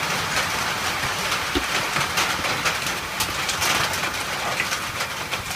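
Heavy rain falling on a shed roof, heard from inside: a steady hiss thick with many separate drop hits.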